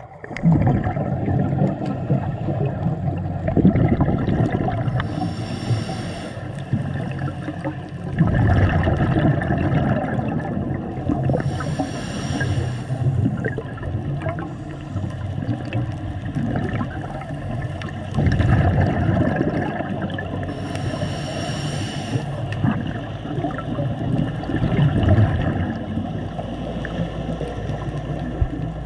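Scuba diving heard underwater: breathing through a regulator, with three short hisses and low bubbling rumbles of exhaled air in between.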